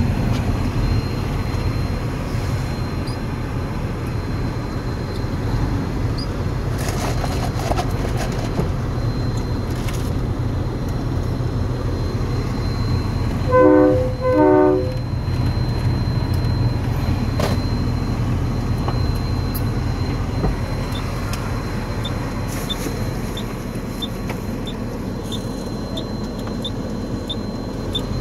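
Steady low engine and road drone heard from inside a truck's cab while driving. About halfway through, a horn gives two short toots a second apart, and near the end a faint regular ticking comes in, about two ticks a second.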